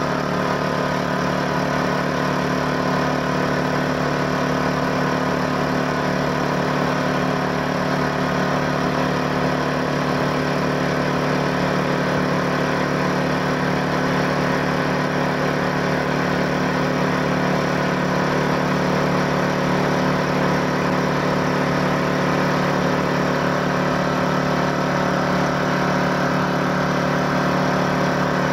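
Bauer Junior II high-pressure breathing-air compressor running steadily, an even, unchanging machine drone with a strong low hum. It is building pressure while filling a breathing-apparatus cylinder toward 200 bar.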